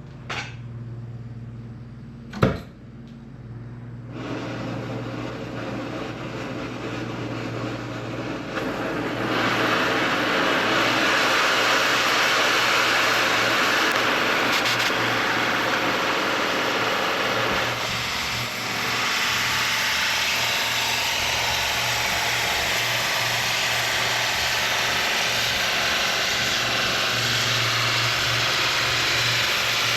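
Track-carriage cutting torch running a heat pass on steel plate: a sharp pop about two and a half seconds in, then a steady flame hiss that builds and turns louder about nine seconds in, over a low steady hum.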